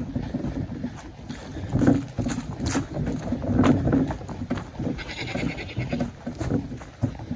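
Goats bleating, with a drawn-out bleat about five seconds in.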